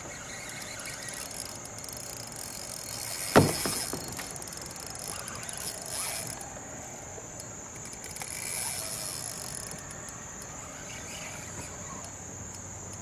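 Night insects chirring steadily at a high pitch, with one sharp knock about three and a half seconds in and a few fainter scrapes and clicks later.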